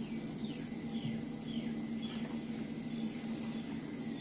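A bird chirping: a run of short, falling chirps in the first half, over a steady low hum.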